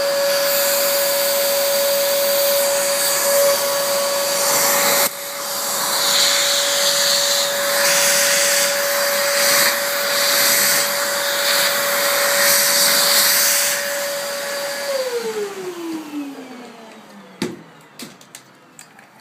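Vacuum cleaner running with a steady motor whine and loud rushing air as it sucks up shards of shattered iPad screen glass. Near the end it is switched off, its whine falling in pitch as the motor winds down, followed by a click.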